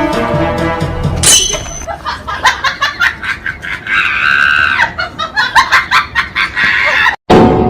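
Background music, broken off by a sharp burst about a second in, followed by several seconds of people laughing in quick repeated bursts. The sound drops out briefly near the end, and the music comes back.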